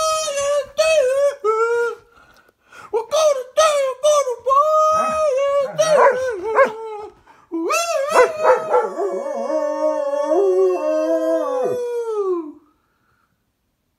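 German shepherd howling in a series of rising and falling howls, ending in one long held howl that drops in pitch and stops about twelve and a half seconds in.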